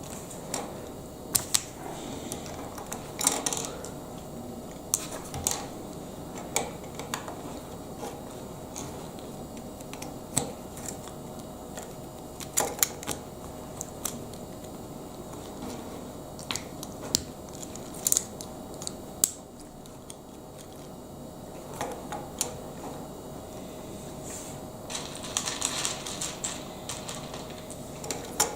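Plastic Lego Technic pieces clicking and knocking as they are handled and pressed together: irregular sharp clicks, with a longer stretch of rattling near the end.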